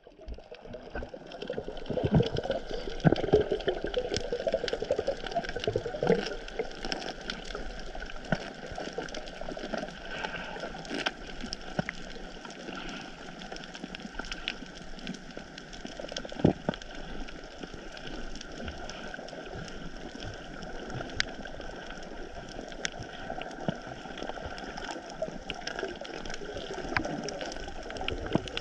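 Underwater sound picked up by a camera in the sea: a steady rushing hiss of water with many scattered small clicks and crackles, louder between about two and six seconds in.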